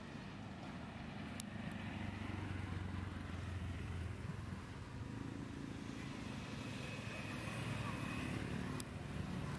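Engine hum of a passing road vehicle, low and steady, growing louder about two seconds in and staying up until near the end, with a couple of faint clicks.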